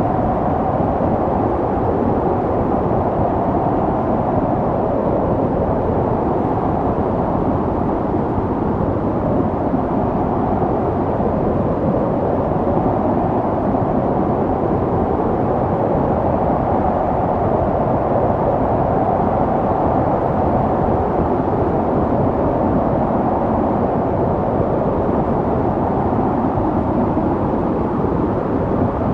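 Snowstorm wind blowing steadily: a constant rushing noise with a slowly wavering hollow tone, no gusts or breaks.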